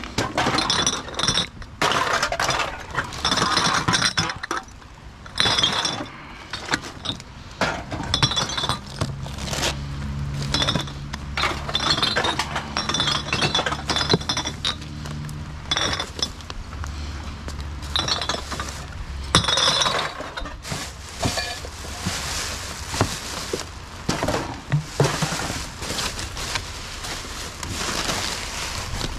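Empty glass bottles clinking and knocking against each other in a plastic wheelie bin as gloved hands rummage through them: many short, ringing clinks at irregular intervals. Toward the end, plastic bags rustle as they are pulled about.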